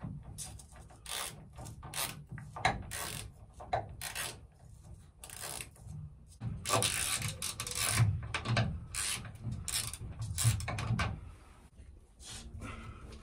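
A spanner turning nuts onto the bolts of a stove-flue roof collar: a run of irregular metallic clicks and scrapes, thickest and loudest through the middle.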